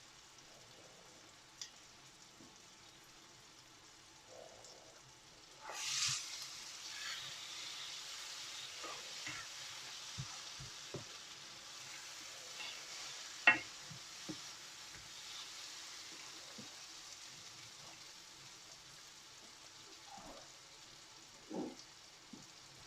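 Spices frying in oil in a pan, sizzling, with stirring and the knock of a utensil on the pan. The sizzle starts up about six seconds in and slowly dies down, with one sharp clack in the middle.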